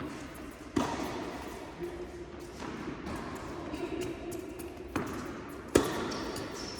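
Tennis ball impacts from racket strikes and court bounces. There are three sharp hits: one about a second in, then two close together near the end, the last the loudest, over a low murmur of background.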